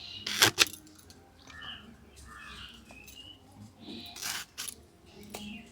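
Birds chirping in the background with short scattered calls. Two short, sharp, crisp sounds, about half a second in and again about four seconds in, come from the taro stalks being handled as they are about to be cut.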